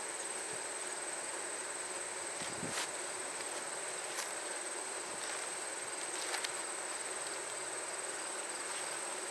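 Insects, cricket-like, trilling steadily on one high, unbroken note, with a few faint clicks.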